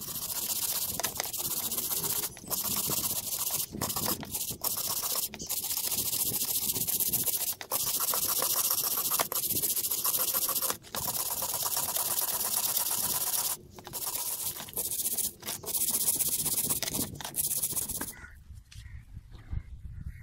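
Steel wire brush scrubbing rust off a wet steel chisel: a steady, harsh scratching hiss broken by brief pauses between strokes, which stops near the end.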